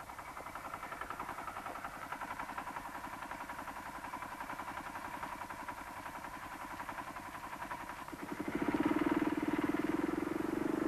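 Hanomag R12 tractor's single-cylinder two-stroke diesel running steadily with a fast, even chug, growing louder about eight seconds in.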